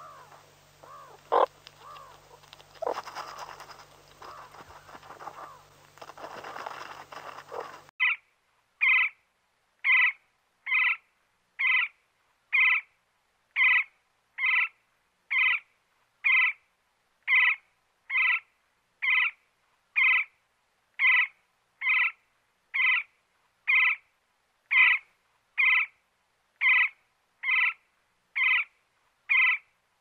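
For about the first eight seconds, meerkats calling and scratching in dry soil, with one sharp click. Then woodpecker nestlings begging from the nest hole: short, identical calls about once a second, evenly repeated.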